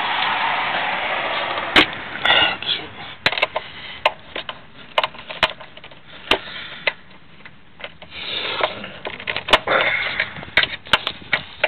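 Scattered sharp clicks and light knocks of small metal hardware and hand tools being handled while fitting new bolts and screws to a washer reservoir, with a rustling noise at the start.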